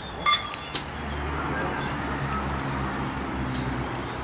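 A sharp metallic clink from hands working at the cab of a 5-inch-gauge live-steam BR 50 locomotive that is being fired up, followed from about a second in by a steady low rumble with a faint hiss.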